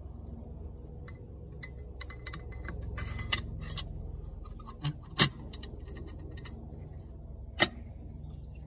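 A wrench and a cheater pipe clinking and rattling against metal as they are worked into place on a tight bolt, with three sharper metallic knocks, the last near the end.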